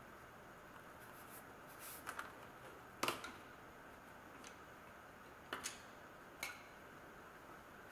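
A handful of sharp clicks and taps of wooden colour pencils being put down and picked up, the loudest about three seconds in, over a faint steady hiss.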